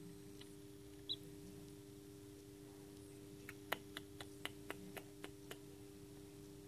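A hatching chick in its pipped egg: one short high peep about a second in, then a quick run of about nine sharp clicks over two seconds as it pecks at the shell, over a steady low hum.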